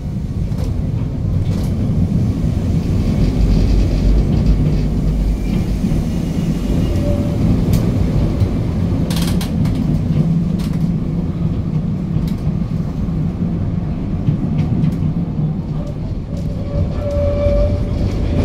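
Historic electric tram running along the street, heard from inside its wooden passenger compartment: a steady low rumble of wheels on rails and running gear, with a few sharp clicks and knocks along the way.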